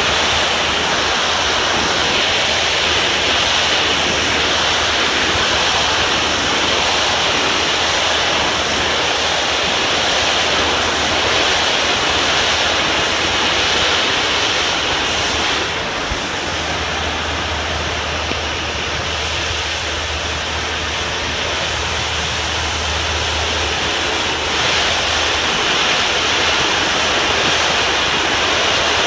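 High-pressure water jet from a pressure-washer wand blasting an exposed-aggregate concrete surface: a steady, loud hiss. It softens a little for several seconds past the middle, then comes back up.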